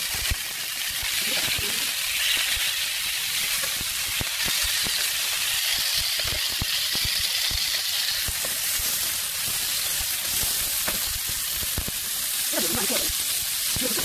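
Hairtail pieces pan-frying in hot oil in a nonstick frying pan: a steady sizzling hiss with many small crackles and pops.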